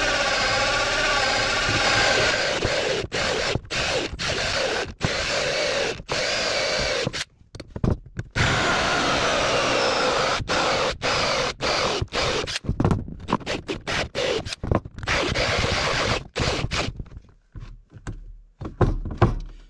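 Cordless drill boring a vent hole through a 2x6 board: the motor runs steadily under load, then in many short stop-start bursts. Near the end it sputters and cuts out as the drill goes dead just as the hole breaks through.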